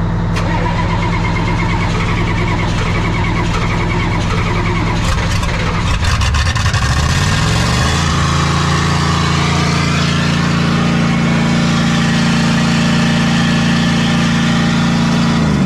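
Ford 7.3 IDI V8 diesel engine running steadily at idle, then speeding up about six seconds in and holding a higher, steady speed.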